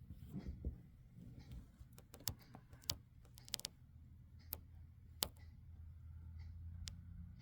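Scattered sharp clicks and ticks at irregular intervals over a faint low rumble.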